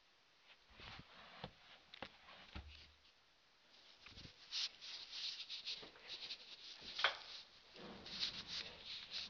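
Irregular scratching and rustling with light taps and clicks, sparse at first and busier from about four seconds in.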